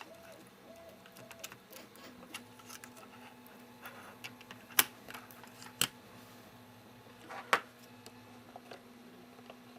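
Light clicks and taps of small device parts and tools being handled during an iPod Touch repair, with three sharper clicks in the middle, over a faint steady hum.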